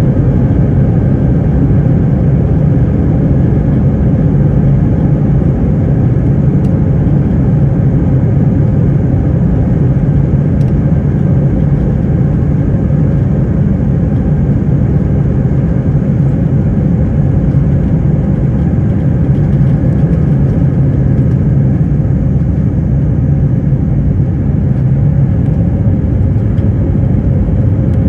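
Jet airliner's engines at takeoff thrust, heard from inside the passenger cabin: a loud, steady low noise mixed with the rumble of the takeoff roll as the plane accelerates and lifts off.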